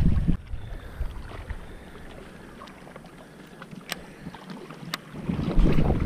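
Wind buffeting the microphone as a loud low rumble, dropping away after the first half-second and returning about five seconds in. Between, faint water noise with a few sharp ticks.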